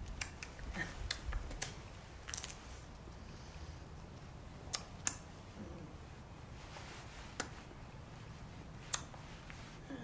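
About ten sharp clicks and light taps at irregular intervals, most of them in the first two and a half seconds, with a few low thumps among the early ones.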